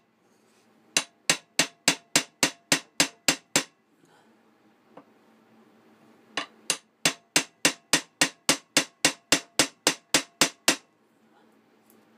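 Ball-peen hammer tapping the end of a 4 mm pin through an antler knife handle, peening it over so the handle can't move. The taps come in two runs at about three a second, with a pause of a few seconds between them.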